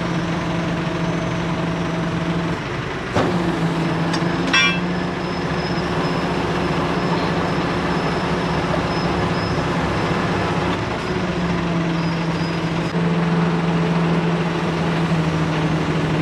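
An engine running steadily over a broad hiss, with a sharp knock about three seconds in and a short rattle of clicks a second later.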